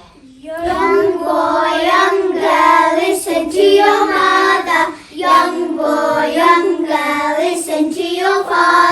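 A group of young children singing together in unison, a nasheed about obeying Allah and one's parents. The singing starts about half a second in and dips briefly near the middle between phrases.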